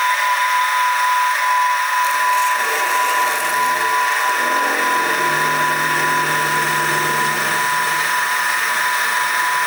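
Sieg SX2P mini mill running with a steady high whine while a drill bit cuts into a metal flywheel held in a machine vise. A lower tone joins the whine from about two and a half seconds in as the bit bites, fading out near the end.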